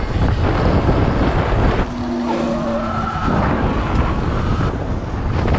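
Electric dirt bike being ridden fast: heavy wind buffeting on the microphone and tyre noise, with a brief whine about two seconds in.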